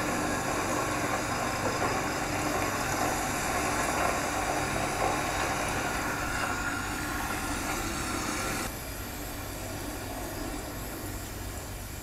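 Car engine running steadily as a car pulls up; the sound steps down in level about nine seconds in.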